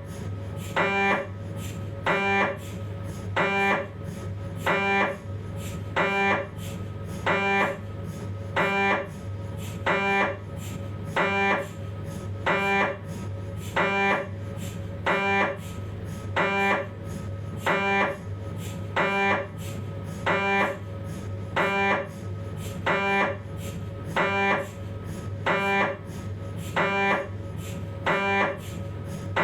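Philips 1.5 T MRI scanner's gradient coils knocking through a 3D T2-weighted spine sequence: a steady, evenly repeating series of short buzzing, tonal pulses, about one and a half a second, over a continuous low hum.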